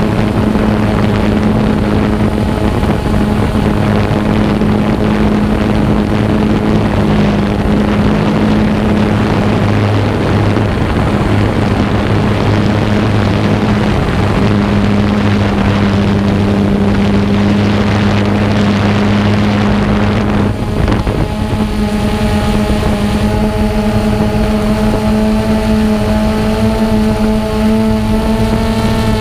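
Xiro Explorer quadcopter's motors and propellers running in a steady hum, with wind buffeting the microphone. About two-thirds of the way through, the wind noise eases and the motor hum comes through clearer, with higher tones.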